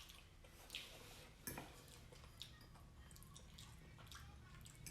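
Faint, wet mouth sounds of someone eating creamy chicken Alfredo pasta, with a few soft clicks and smacks.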